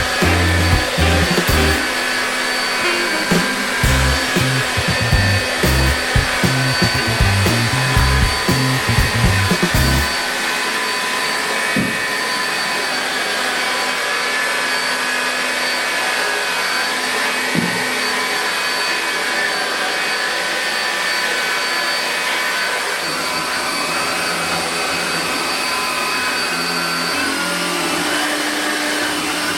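Electrolux Ultrapower stick vacuum running steadily with a motor whine. Its pitch steps up slightly near the end.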